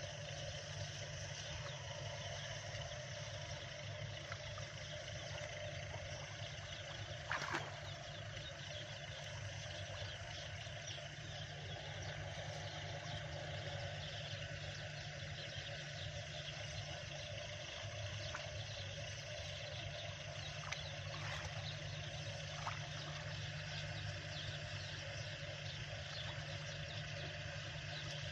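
Steady rural outdoor background: a low, even hum under a wash of insect and bird sounds, with one short louder sound about seven and a half seconds in.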